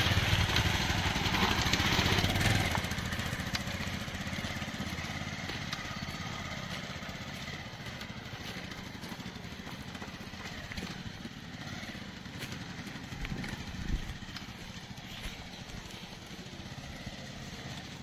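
Motorcycle engine running on a rough off-road track. It is loud for the first couple of seconds, then drops to a quieter steady running sound with a few scattered knocks.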